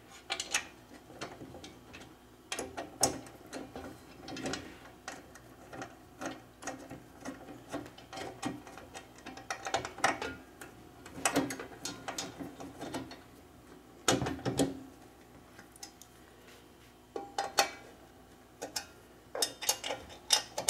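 Hex key turning bolts into the frame of an elliptical trainer. Irregular metal clicks and short scrapes come as the key is turned and repositioned in the bolt heads.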